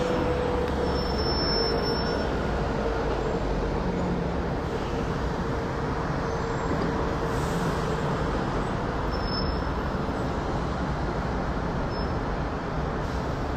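Boeing 787-9 airliner overhead: a steady jet roar that slowly fades, with a faint whistling tone that drifts slowly down in pitch.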